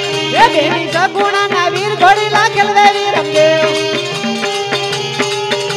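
Traditional Gujarati folk music for a Ramamandal dance: a melody that slides up and down in pitch over a steady held drone, kept in time by a regular drum beat.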